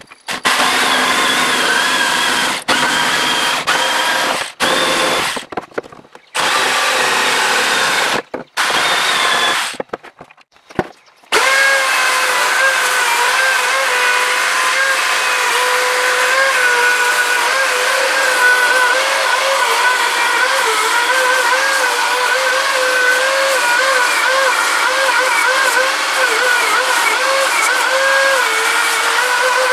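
A jigsaw cutting beech in short bursts, broken by cuts. For the last two thirds, an electric drill clamped in a drill stand spins a sanding disc against the wood, a steady motor whine whose pitch dips and recovers as the wood is pressed on the disc.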